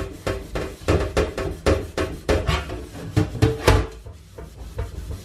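A sponge scrubbing a darkened stainless steel pot in quick back-and-forth strokes, about two or three a second, rubbing off the brown tarnish. The strokes ease off about four seconds in, then pick up again near the end.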